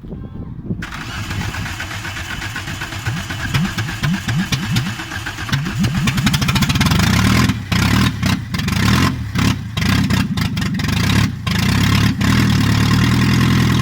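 1988 Volkswagen Jetta Mk2's engine running and revving with its exhaust disconnected and leaking, so it sounds like a tractor. The pitch climbs several times, and in the second half the sound drops out briefly a few times.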